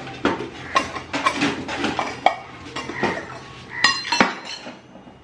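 Stainless steel containers and lids clinking and clattering as they are handled and set down on a stone countertop: a string of metallic taps with a brief ring, the sharpest knocks about four seconds in.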